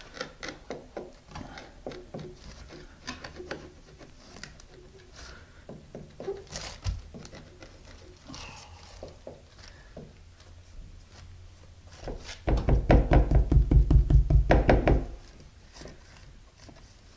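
Light clicks and taps of a ceramic tile and plastic spacers being handled and set against the wall, then, about twelve seconds in, some two and a half seconds of loud, rapid, rhythmic thumping.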